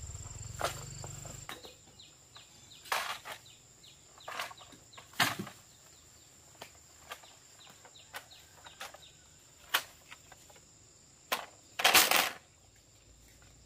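Short rustles and knocks of hands working among plum branches and fruit, the loudest a half-second rustle near the end. Behind them runs a steady high insect trill, with many quick falling chirps.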